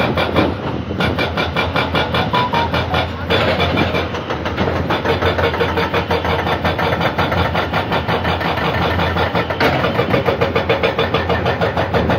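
Diesel engines of tracked hydraulic excavators running with a fast, even throb over a steady low hum. The sound changes abruptly twice along the way.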